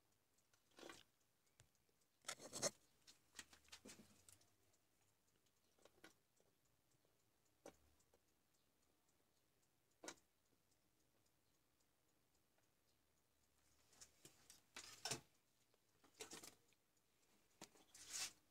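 Faint, scattered clicks and short scrapes from hands handling a small charger circuit board and soldering tools, louder clusters a couple of seconds in and near the end.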